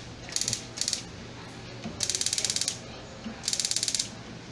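Electric spark igniter of a Mabe gas stove clicking in rapid ticks as its push button is held to light the burners, in four short bursts, the last two the longest.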